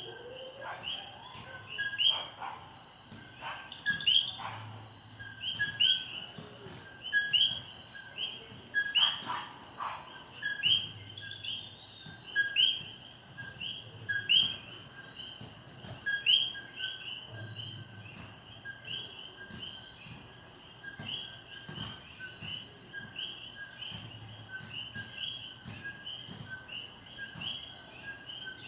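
Several common coquí frogs calling at once, each call a short low "co" followed by a rising "quí", repeated over and over and overlapping, over a steady high-pitched drone.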